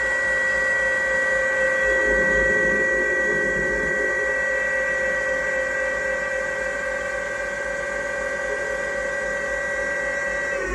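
GT27 CNC gang-tool lathe cutting a test part under flood coolant: a steady high spindle whine over the hiss and splash of coolant. A rougher, lower noise joins for about two seconds near the start.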